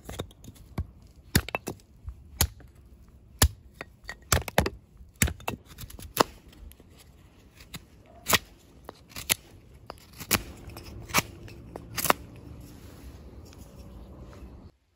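A hatchet blade cutting into a soft wooden board, shaving and splitting slivers off its end. It makes a run of sharp, irregular cracks and snaps as the edge bites and the wood splinters.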